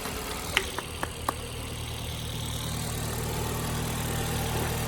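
Ford Fiesta 1.25 four-cylinder petrol engine idling steadily on its first run after a new timing belt has been fitted. A few sharp clicks come in the first second and a half.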